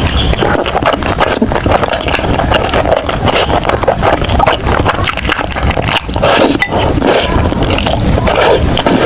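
Close-miked eating sounds: continuous chewing with many quick crunches and wet mouth noises.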